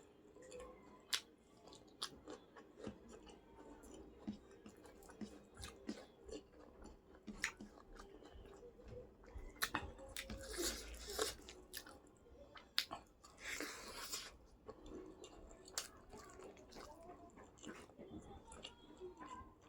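A person chewing and biting food close to the microphone, with wet mouth clicks throughout and two longer, louder crunchy bursts about ten and thirteen seconds in.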